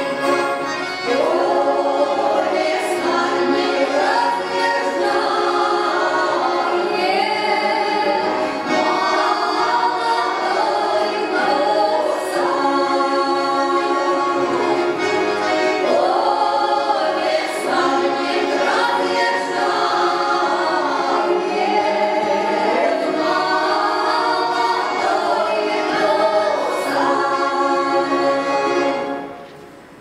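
Three women singing a Russian folk song together, accompanied by button accordion and balalaika. The singing breaks off briefly just before the end.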